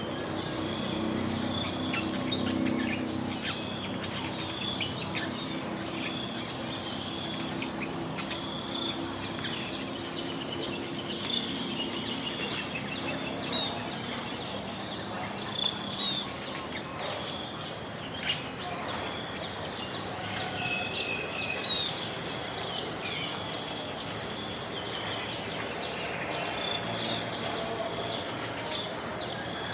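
Rural outdoor ambience of many birds chirping and calling, with a few louder calls standing out, over a steady high-pitched insect drone.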